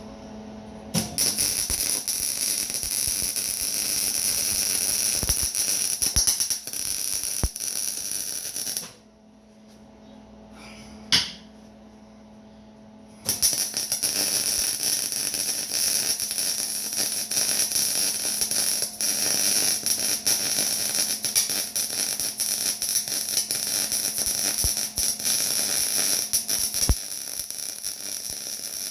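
MIG welder laying beads with a steady crackling hiss. It stops about nine seconds in, gives one short burst a couple of seconds later, then starts again about thirteen seconds in and carries on. A steady low hum sounds underneath throughout.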